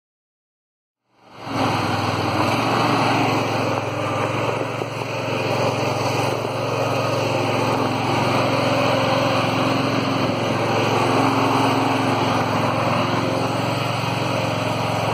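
Air-cooled V-twin petrol engine of a garden tractor running steadily under load while the tractor works the ground with its rear rotary tiller. The sound fades in about a second in.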